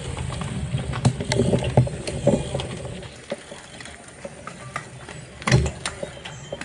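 A bunch of gravel bikes rolling off together on paving: clicks and rattles from the bikes over a low rumble, with a loud knock about five and a half seconds in.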